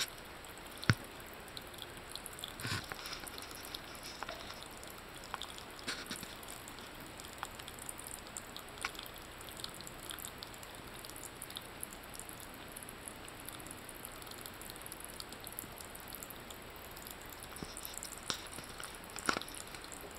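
Thin stream of tap water trickling into a ceramic bathroom basin, with scattered small clicks and wet taps of a cat lapping at the stream; a sharp click about a second in is the loudest.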